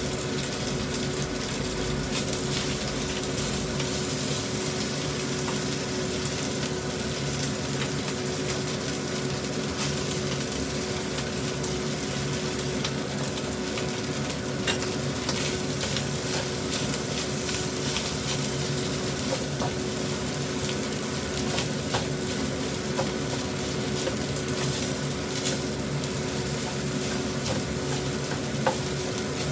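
Rice and garlic sizzling in a hot non-stick wok as a spatula stirs and scrapes through it, with occasional light clicks of the spatula against the pan.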